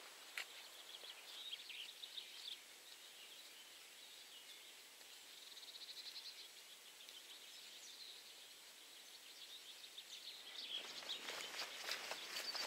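Faint songbirds singing in hedgerow trees, with scattered chirps and a rapid trill about halfway. Footsteps on a dirt path come in and grow louder near the end.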